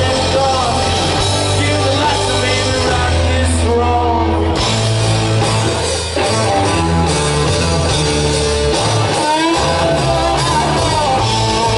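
Rock band playing live through a festival PA, with electric guitars, bass and drums under a lead vocal in places, heard from within the crowd. The music dips briefly about six seconds in.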